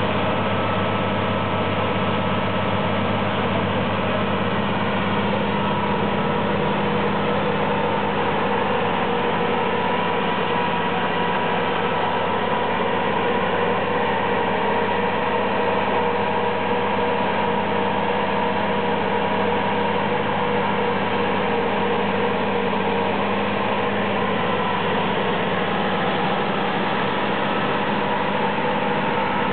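Machinery running steadily at constant speed, a continuous hum with no change in pitch or level.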